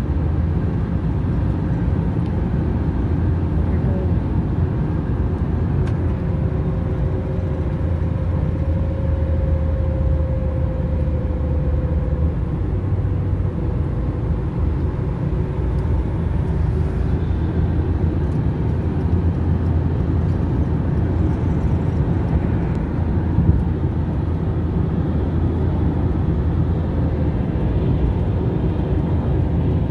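Steady drone of a van's engine and tyres at highway speed, heard from inside the cabin of the moving vehicle.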